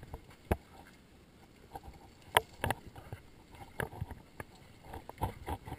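Irregular knocks, taps and rustles of wet canyoning gear being handled while neoprene boots and a wetsuit are taken off. The sharpest knock comes about two and a half seconds in.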